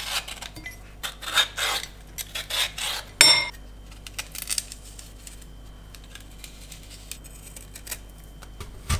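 Pears being peeled and cored by hand over a glass bowl: short scraping strokes of a blade through the fruit, with one sharp clink against the glass about three seconds in, then quieter scraping.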